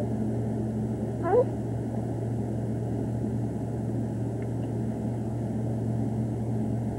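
Steady low hum throughout, with one short rising squeak about a second in from a newborn baby.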